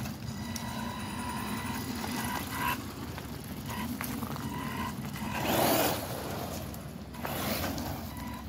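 Electric motors and gears of a six-wheel radio-controlled truck whining as it drives over dirt, the whine coming and going with the throttle. A louder rush of tyre and dirt noise comes a little over halfway through.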